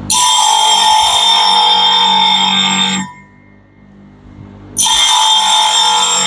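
Clipper blade sharpening machine running with the clipper blade ground on its spinning sharpening disc: a loud, steady, high metallic whine. It breaks off about three seconds in and starts again nearly two seconds later.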